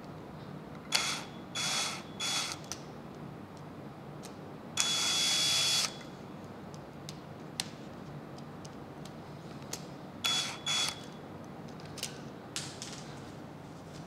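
Cordless drill/driver backing out a wall switch's mounting screws in short spurts: three brief runs about a second in, a longer run of about a second, then another short run later, each with a steady high motor whine. A few light clicks of handling come between the runs.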